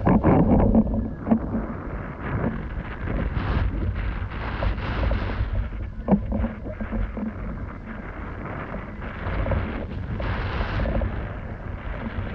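Wind buffeting the microphone over the rush of water while windfoiling, swelling and easing, with a few short impacts: the loudest at the start and another about six seconds in.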